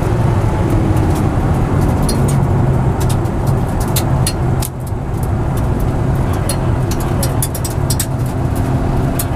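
Nissan R33 GT-R's twin-turbo straight-six running hard under load, heard from inside the cabin, with a brief dip in the engine note about halfway through. Sharp clicks and rattles come through on top of it.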